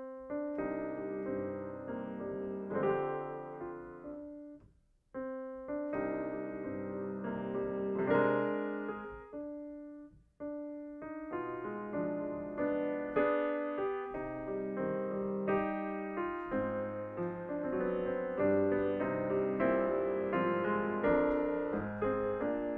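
Solo grand piano playing a classical piece. The phrases break off twice, with short pauses near five and ten seconds in, before the music runs on continuously.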